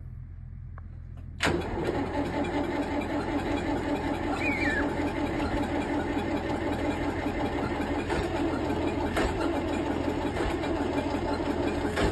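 Volvo tractor engine cold-started at −15 °C: it catches suddenly about a second and a half in and keeps running steadily.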